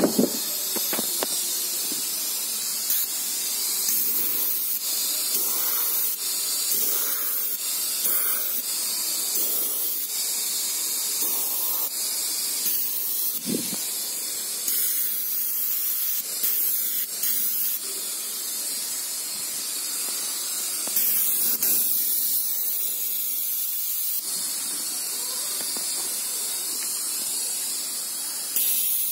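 Airbrush spraying paint: a continuous hiss of air and paint that swells and drops in strength as the gun is worked.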